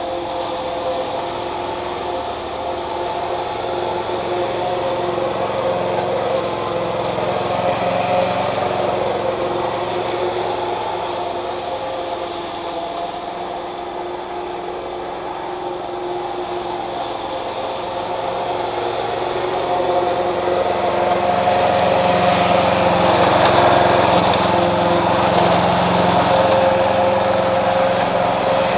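Victa walk-behind lawn mower running steadily as it cuts grass, getting louder in the last third as it comes closer.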